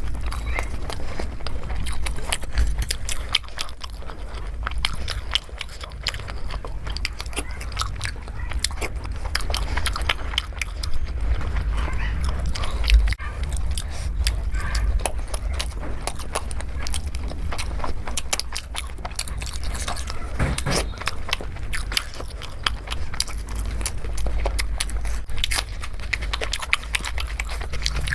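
Close-miked eating sounds: a person biting and chewing food, with many small irregular clicks, smacks and crunches. A steady low hum runs underneath.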